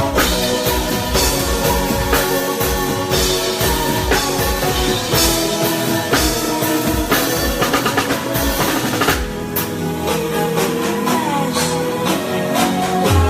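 Live band music with drum kit to the fore, snare and bass drum hits over held instrument notes; the drumming thins out about nine seconds in.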